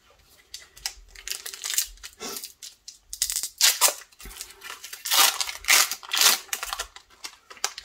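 Foil wrapper of an Upper Deck hockey card pack crinkling and tearing as it is handled and ripped open: a run of irregular crackles, loudest around the middle and in the second half.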